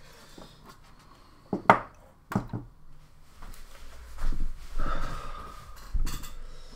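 Handling noises on a workbench while a brushless motor is plugged into the VESC motor controller: a few sharp knocks, the loudest about two seconds in, then rustling and another knock near the end.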